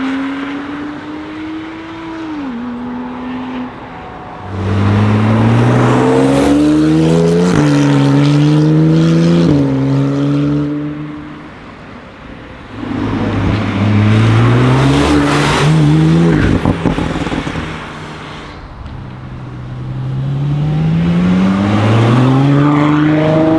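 Porsche 991 Turbo S twin-turbo flat-six with an Akrapovic exhaust accelerating hard three times. Each run climbs in pitch and drops back at quick upshifts, with a few sharp pops around two-thirds of the way through.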